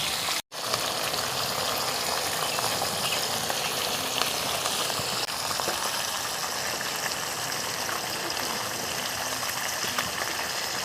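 Rohu fish pieces, rubbed with turmeric and salt, sizzling as they fry in hot oil in a kadai: a steady hiss that drops out for a moment about half a second in.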